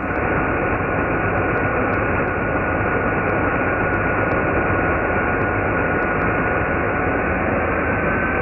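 Parkside 1400 W electric chainsaw running, its sound slowed down with the slow-motion picture into a dull, steady rushing drone with a thin steady whine through it.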